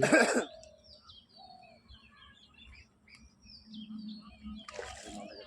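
Small birds chirping, with many short high calls scattered throughout.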